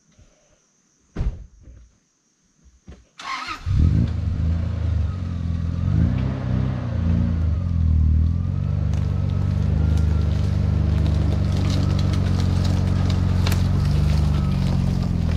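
A Toyota 80 series LandCruiser's engine starting about three seconds in and then running steadily, its pitch dipping and rising once soon after. A few knocks come before it.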